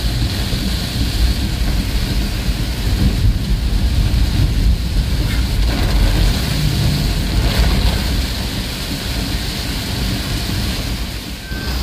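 Heavy rain drumming steadily on a moving vehicle, heard from inside, with a deep continuous rumble underneath. The loudness dips briefly near the end.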